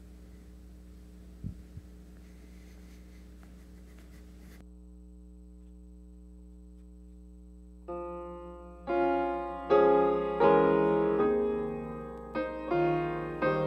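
A steady low hum with two faint knocks early on. About eight seconds in, a piano starts playing: chords struck and dying away, getting louder as the music begins.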